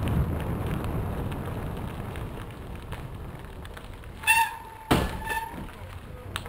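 Bicycle tyres rumbling over a gravel trail, the rumble easing off as the ground gets smoother. About two-thirds in there is a short high squeak, then a sharp knock, then the squeak again briefly.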